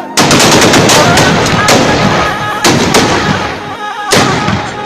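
Loud gunfire and blasts: a rapid string of shots in the first second, then a heavy crack about once a second with rumbling noise between them.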